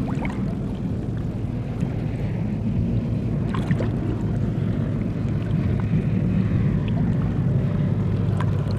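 Shallow seawater sloshing and splashing as a person wades and reaches into it, with a few short sharp splashes, over a steady low hum.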